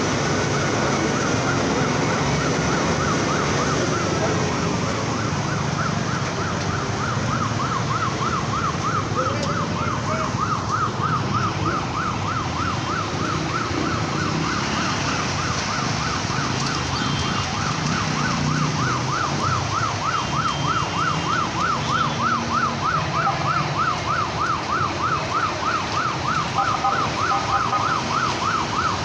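An emergency vehicle's siren sounding in a fast, repeating up-and-down warble. It is faint at first and becomes loud after about six seconds. Under it runs a steady rumble of traffic moving through floodwater.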